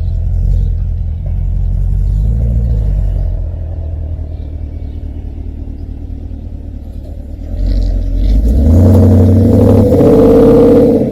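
Porsche Cayenne S engine through an Akrapovic aftermarket exhaust, rumbling at low revs, then revving up about eight seconds in to its loudest. It cuts off suddenly at the end.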